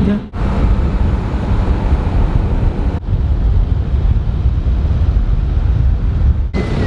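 Wind buffeting the microphone as the vehicle drives along with its window open, over a low road and engine rumble. The sound changes abruptly twice, as the shots cut.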